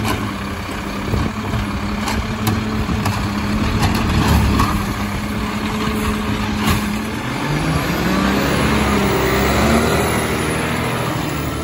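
Mack garbage truck with a McNeilus automated side-loader: the diesel engine runs while the lifting arm sets the emptied recycling cart back down, with a few sharp knocks. After about seven seconds the engine revs up and rises in pitch as the truck pulls away.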